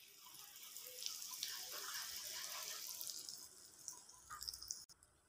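Hot oil sizzling around asafoetida in a non-stick kadai: a faint hiss with small crackles, strongest in the first three seconds and then dying down.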